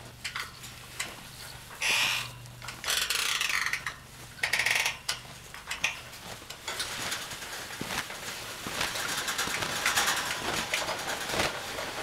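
Metal frame of a tarp-covered corral shelter being dragged over dirt. It scrapes in a few short bursts, then keeps up a long run of clinks and rattles.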